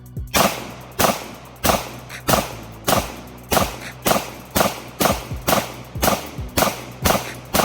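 Taurus G3 9mm pistol firing a magazine at a steady pace: about a dozen shots, roughly one and a half a second, evenly spaced.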